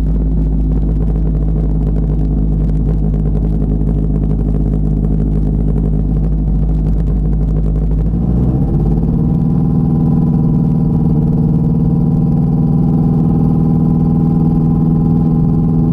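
Light aircraft engine and propeller running steadily while taxiing, heard through a microphone inside the pilot's helmet. The engine note shifts about halfway through and runs a little louder after.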